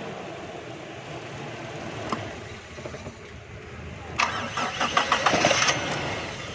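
1982 Toyota Corolla engine idling steadily just after a rev dies away, running now that carbon has been cleaned from the battery terminal. A single click about two seconds in and a rapid run of knocks and clicks for about a second and a half near the end.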